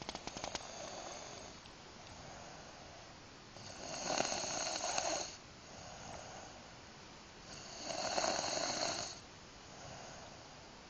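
A sleeping young woman snoring: two loud snores about four seconds apart, with softer breaths between them. A short run of clicks right at the start.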